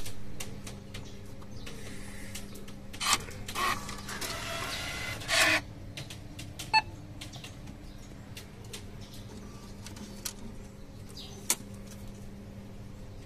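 Ticket vending machine taking banknotes and working through a sale: its note reader and mechanism whirr and click over a steady low hum, with the longest whirr about four to five and a half seconds in and a short beep near seven seconds.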